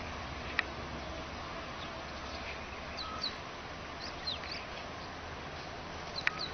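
Small birds chirping now and then, a few short falling chirps, over a steady outdoor hiss.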